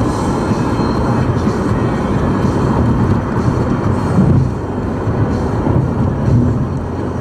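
Steady low road and tyre rumble inside a car's cabin while cruising at freeway speed, easing slightly about two-thirds of the way through.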